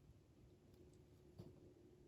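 Near silence, with a few faint ticks and one light knock about one and a half seconds in.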